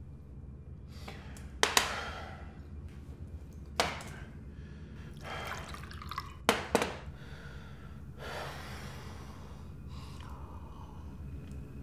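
Ice cubes clinking against a glass tumbler, with several sharp clinks, and liquor poured over the ice in two short pours.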